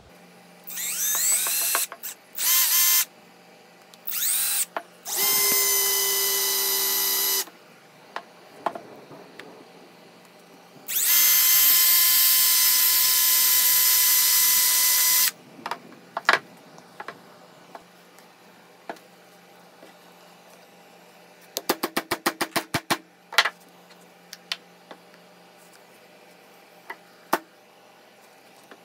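Cordless drill run in several bursts against the rusty head of a 4 lb sledge hammer, its motor whine rising as it spins up, then running steady. Later comes a quick run of sharp clicks and a few scattered knocks.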